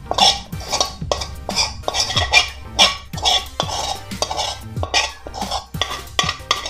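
Spatula scraping scrambled egg and asparagus out of a metal pan into a plastic container, in quick repeated scrapes a little over two a second.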